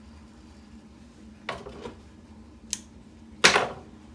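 The leather piece is drawn out from under the raised presser foot of a hand-crank leather patcher sewing machine, with the thread pulled through: a short scraping rustle, a sharp click, then a louder brief scrape near the end.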